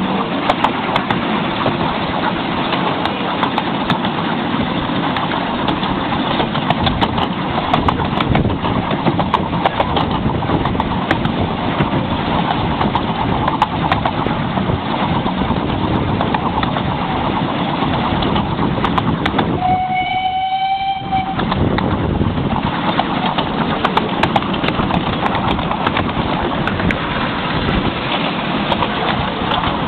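Miniature railway train running steadily on its track, heard from aboard, a constant rumble and rattle. About twenty seconds in, the locomotive's whistle sounds once, a single note held for nearly two seconds.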